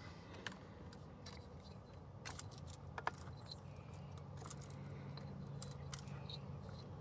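Faint scattered clicks and small handling noises of plastic wiring connectors being handled and plugged together at a steering wheel, over a low steady hum.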